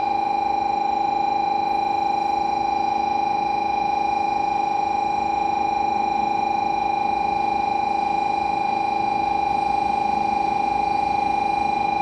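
Shinkansen platform warning alarm sounding for an approaching train: a loud, steady electronic buzzing tone that holds one pitch and never changes.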